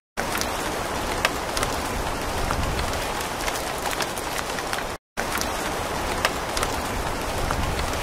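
Steady rain falling, a dense hiss scattered with many sharp individual drop taps. The sound cuts out to silence for a split second right at the start and again about five seconds in, as the looped rain recording restarts.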